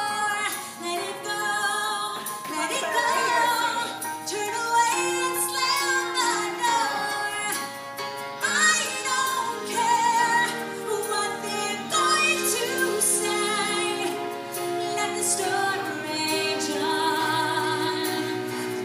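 Music with a woman singing, the song the children are dancing to.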